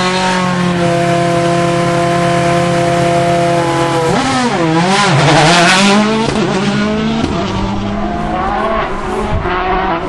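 Rally car engine held at steady high revs on the start line, then launching away about four seconds in, its revs swooping up and down as it pulls off and changes gear.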